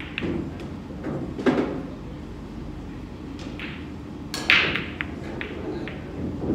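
Pool balls clacking in a 9-ball game: a few sharp knocks, the stronger about a second and a half in and the loudest about four and a half seconds in.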